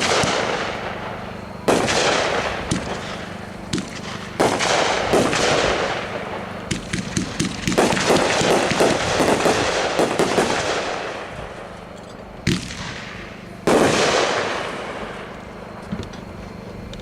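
Cutting Edge 'Warning, Avalanche Ahead' consumer firework cake firing its shots. Sharp reports come every second or few, each followed by a long fading crackle, with a thick run of small crackling pops about halfway through.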